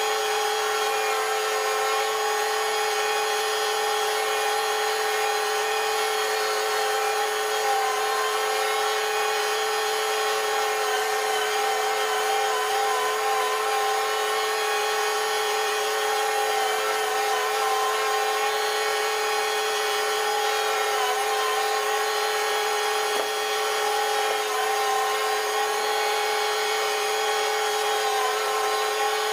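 Farm feed-processing machinery running steadily at a constant speed, giving a high, even whine with a slight wobble in pitch midway.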